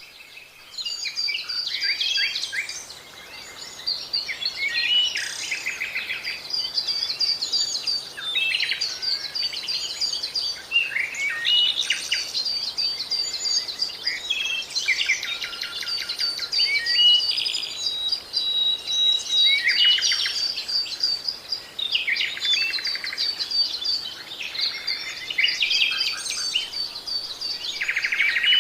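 Small songbirds chirping and calling, many short notes and quick trills overlapping without a break.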